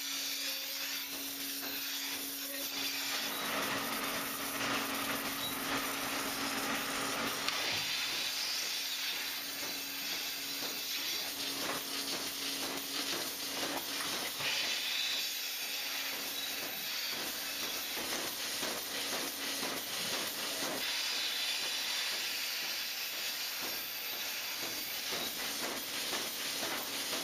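Milking machine vacuum hissing steadily as milking units are put on cows' teats, with a steady low hum under it.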